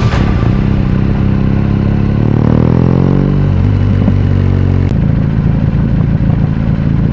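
Motorcycle engine running. Its revs fall for about a second, starting about two seconds in, and from about five seconds in it gives a rougher, steadier sound.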